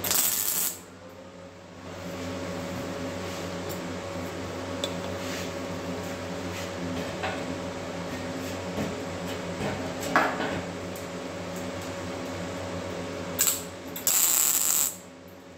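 Welder laying tack welds on sheet steel: three short bursts of crackling hiss, one at the start and two close together near the end, each starting and stopping abruptly. A steady hum runs under them, with a few light ticks in between.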